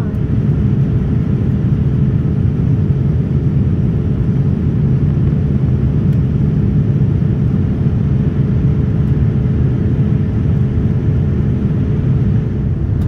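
Steady low rumble of a Boeing 787-9 airliner, heard from inside its passenger cabin.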